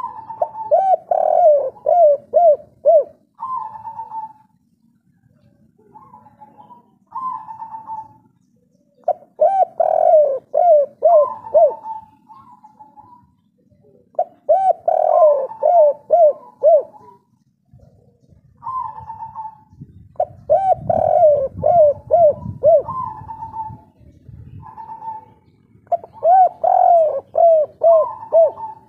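Spotted dove cooing. It repeats its song phrase every few seconds, each a quick run of about five coos, with softer single coos between the phrases.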